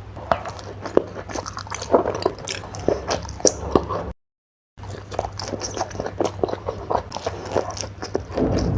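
Close-miked eating sounds: biting and chewing with wet mouth smacks and short crisp crunches, over a low steady hum. The sound cuts out completely for about half a second around four seconds in.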